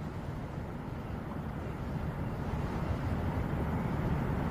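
Wind buffeting the microphone, a steady deep rumble that grows slowly louder.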